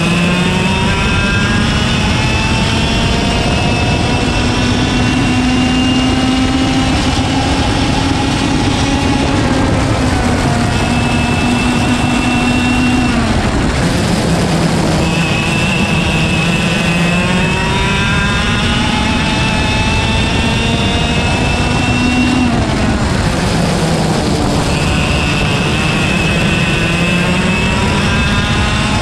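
IAME KA100 single-speed kart engine, a 100cc two-stroke, at race pace: the revs climb steadily for several seconds at a time, then drop sharply, about three times, under a steady rush of wind and tyre noise.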